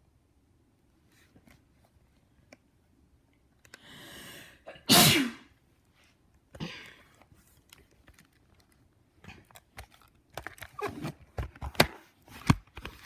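A dog sneezes once, sharply and loudly, after a short breath in. A softer snuffle follows, then a scatter of light clicks and knocks.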